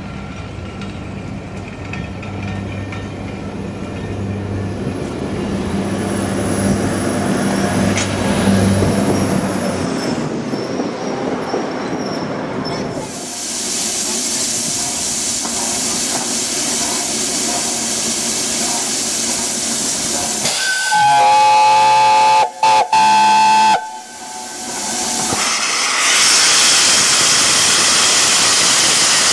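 Peppercorn A1 Pacific steam locomotive 60163 Tornado hissing steam, then blowing its whistle loudly about two-thirds of the way in, as three blasts with the first the longest. After the whistle, a loud hiss of steam from the open cylinder drain cocks as the engine moves off. A low steady hum comes before the steam.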